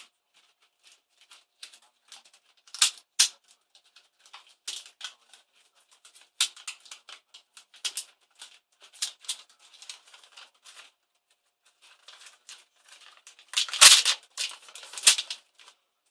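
ASUS K55VJ laptop keyboard being pried and peeled by hand off its sheet-metal backing plate: a run of sharp plastic clicks, cracks and rattles, with two loud snaps about three seconds in and a dense burst of cracking near the end as it comes free.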